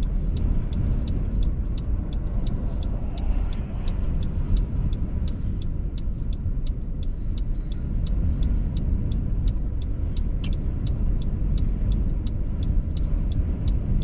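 A steady low rumble of strong wind buffeting a stopped vehicle, heard from inside the cabin. Over it runs a regular ticking, about three ticks a second, from the vehicle's flasher.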